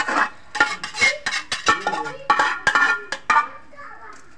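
A metal spoon clinking and scraping against stainless-steel pots and bowls: a quick, irregular run of sharp clinks, each ringing briefly.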